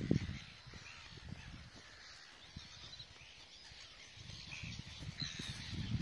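A gull breeding colony calling: many gulls give short cries and squawks that overlap into a continuous chorus. A low rumble sits under it at the start and again near the end.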